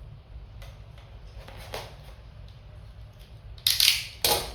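Tape seals being peeled off a cardboard product box: faint handling rustles, then two short, loud ripping tears near the end.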